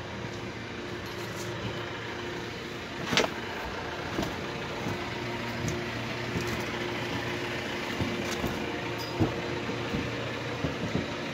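A steady engine or machine hum with a constant low drone, and scattered clicks and knocks, the sharpest about three seconds in.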